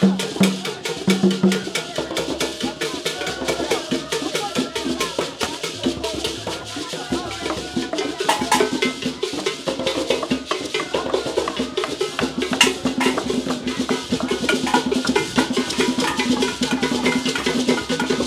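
Traditional Ghanaian drum ensemble playing hand drums in a fast, steady rhythm.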